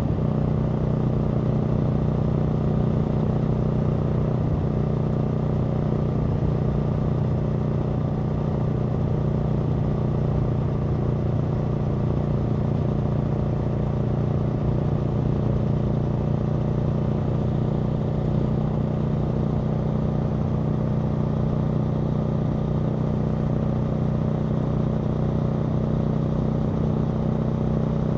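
Aprilia Tuono V4 motorcycle's V4 engine running at a steady, unchanging engine speed, with no revving or gear changes.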